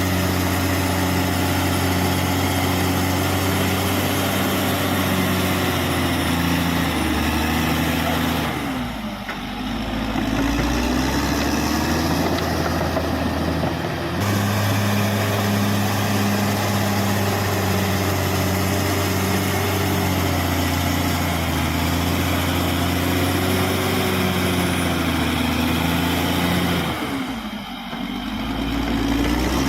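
Caterpillar D6R XL bulldozer's diesel engine running steadily at working revs; twice, about nine seconds in and near the end, the revs sag and then climb back up.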